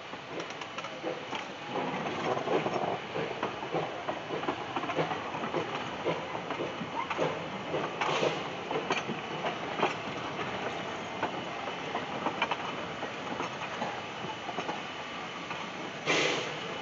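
Two-foot narrow-gauge freight cars rolling slowly past: a gravel-loaded flatcar and wooden boxcars, their wheels clicking and clanking irregularly over the rail joints under a steady rumble. There are two brief louder rushes of noise, one about eight seconds in and one near the end.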